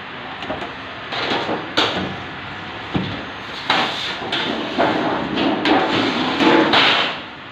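Steel sheet panels being handled on a metal worktable: metal clanking and scraping, with sharp knocks about two and three seconds in and a longer run of sliding, scraping metal in the second half.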